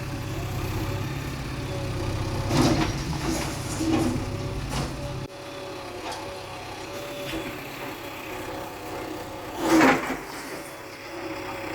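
Bulldozer engine running with a low rumble that cuts off abruptly about five seconds in, with several knocks of demolition work, the loudest near the end.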